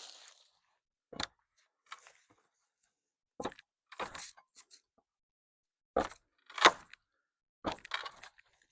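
A series of short, separate crunching and scraping sounds at irregular intervals, from work on old, splitting wooden corral boards. The loudest comes about two-thirds of the way in.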